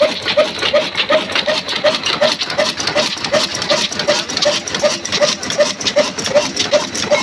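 Large old stationary diesel engine running steadily, with dense mechanical clatter from the fuel pump and valve gear and a regular tick about three times a second.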